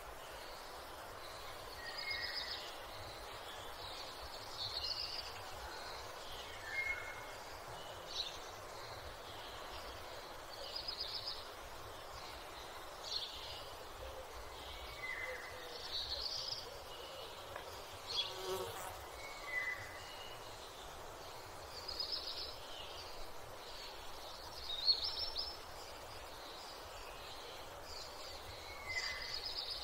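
Dawn ambience of wild birds: short chirps and calls come every second or two over a steady background hiss.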